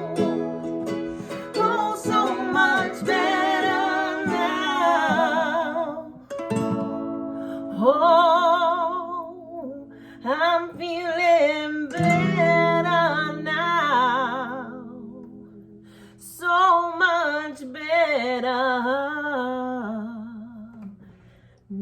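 Music: a voice singing long wordless notes with vibrato over plucked string accompaniment, in several phrases that fade out near the end.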